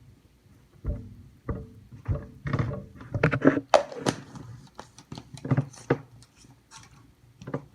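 Irregular clicks, taps and knocks of hard plastic being handled: supplement tubs, lids and a scoop while powder is added to a drink. The knocks come unevenly, some louder than others, from about a second in until near the end.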